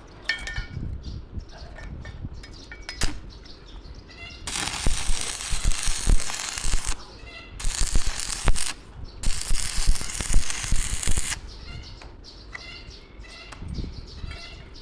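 Three loud bursts of hissing, the longest a couple of seconds, over small birds chirping and occasional low knocks.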